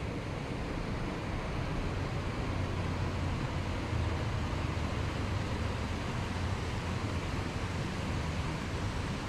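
Steady low rumble of distant road traffic under an even outdoor hiss, with no single passing vehicle standing out.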